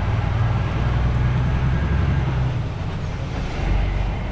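Truck's diesel engine running steadily, heard inside the cab, as a low even hum over a hiss of road noise.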